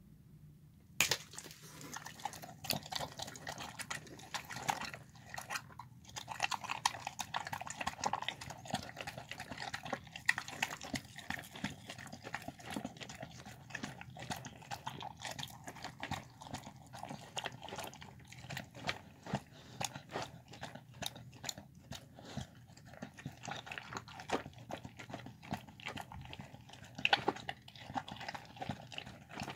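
A dog eating a soft home-made meal of chicken, cabbage, carrot and lentil rice from a plastic bowl: continuous wet chewing, smacking and lip-licking with many small clicks and the odd louder knock, starting about a second in.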